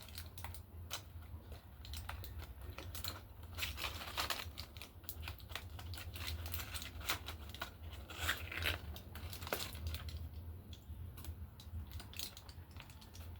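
Rustling and clatter of things being handled and moved about: an irregular run of clicks, crinkles and taps, over a steady low hum.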